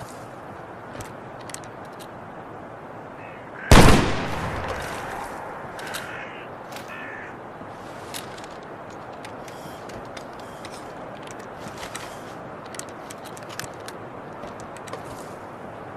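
A shortened flintlock musket fired once, about four seconds in: one loud sharp shot that dies away over a second or two, over a steady background hiss.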